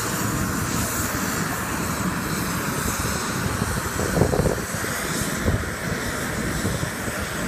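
Steady aircraft engine noise on an airport ramp, with a brief louder swell about four seconds in.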